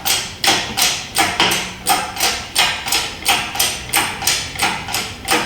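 Hoist ratcheting at about three even clicks a second as it lifts a motorcycle engine out of its frame on chains.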